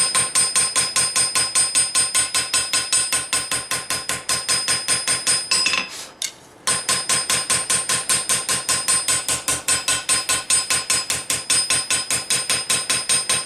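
Hand hammer striking hot steel on an anvil in a fast, even rhythm of about four to five blows a second, each blow ringing. This is forging the bevel into a thin knife blade. The hammering breaks off for a moment about six seconds in, then resumes.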